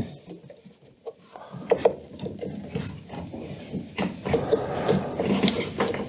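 A hose connection being worked off inside a Siemens washing machine: rubber and plastic rubbing and scraping, with a couple of sharp clicks in the first two seconds and small knocks later.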